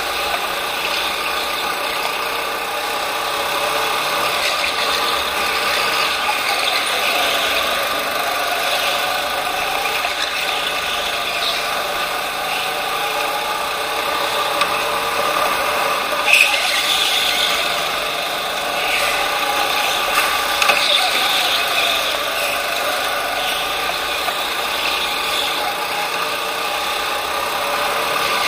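Onboard sound of a racing go-kart lapping an indoor track: a steady mechanical whine made of several pitches that waver up and down through the corners. A brief sharper noise stands out about halfway through.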